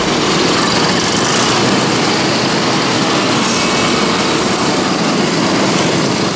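A group of vintage Puch two-stroke motorcycles running together, several riding off at low speed, their engines blending into one steady, loud din.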